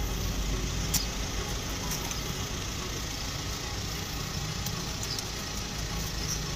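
An engine idling steadily, with a few light clicks on top.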